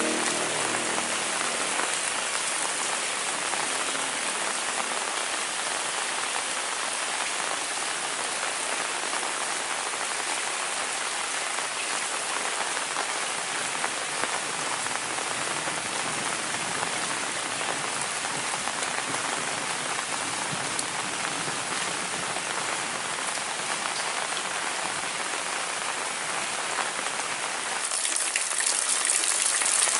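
Heavy rain falling steadily, a dense even hiss of drops, which grows louder about two seconds before the end.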